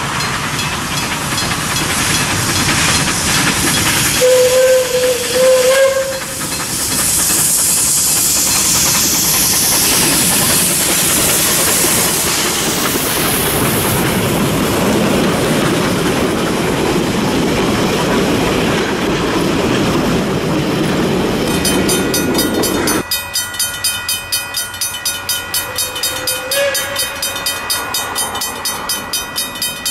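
Steam locomotive D 16 sounds its whistle once for about two seconds, then runs past hauling its carriages with a steady rush of steam and wheels on rail. Near the end the sound changes to a rapid pulsing rhythm.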